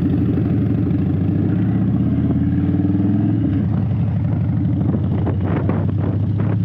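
Harley-Davidson V-twin motorcycle engine running under way, with a steady throbbing note that drops a little about halfway through as the rider eases off. Wind buffets the microphone in the second half.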